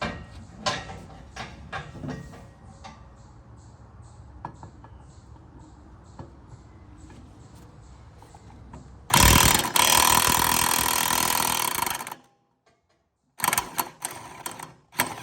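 Socket ratchet clicking in quick strokes as a mower blade bolt is worked loose, with fainter ticks between. About nine seconds in comes a loud, steady whirring noise lasting about three seconds.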